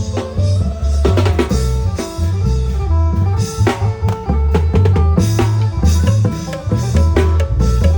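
Thai klong yao long-drum band playing procession music: drums and percussion over a pitched melody and a heavy bass line.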